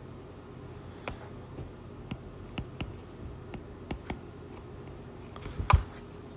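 Irregular light clicks and taps, about a dozen spread over a few seconds, with one louder knock about five and a half seconds in, over a faint steady hum.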